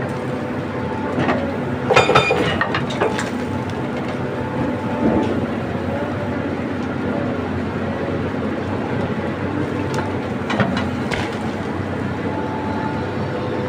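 A heavy machine's diesel engine running steadily, with sharp metallic clanks and knocks about two seconds in and again around ten to eleven seconds in.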